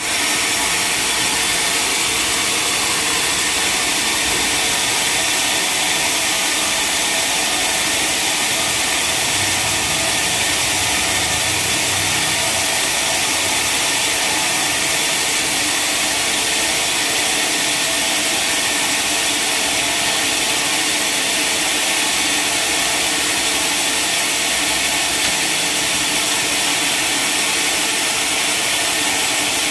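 Sawmill running steadily, its saw and motor giving an unbroken, high-pitched noise while cutting a log.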